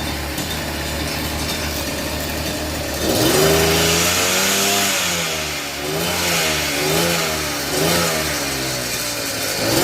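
Small gasoline engine of a motorized kayak idling steadily, then revved repeatedly from about three seconds in, its pitch rising and falling five or six times.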